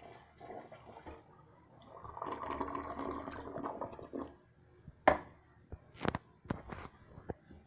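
Mansfield Alto toilet finishing its flush: water rushing and swirling down the bowl, with a second, louder rush about two seconds in that dies away around four seconds. Several sharp clicks and knocks follow near the end.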